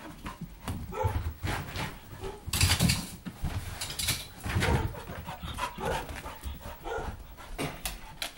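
Dog barking repeatedly in short bursts, a frightened dog barking at a doll it is afraid of, with loud scuffling noises about three and four seconds in.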